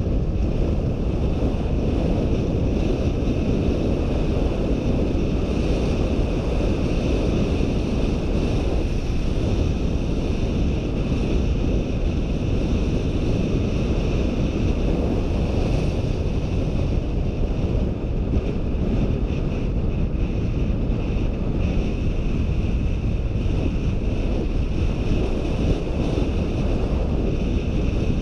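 Wind rushing over a GoPro Hero 4's microphone on a bicycle coasting downhill at speed: a loud, steady, low rumbling rush with a fainter steady hiss above it.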